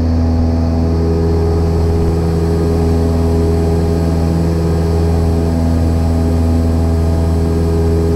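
Cessna 172 Skyhawk's piston engine and propeller droning steadily at climb power just after takeoff, heard inside the cabin.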